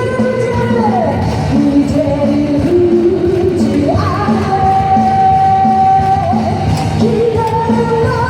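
Live pop-rock music: a woman's voice holds long sung notes over the band's steady beat.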